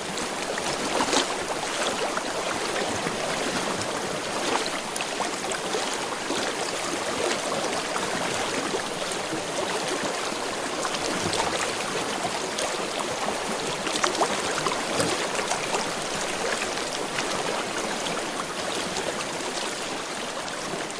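River water flowing: a steady rush of moving water with a few brief splashes.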